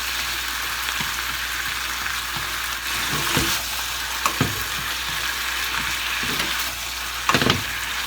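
Thinly sliced beef simmering and sizzling in a pan of soy sauce, sugar, mirin and sake, a steady hiss, with a few brief knocks as it is stirred.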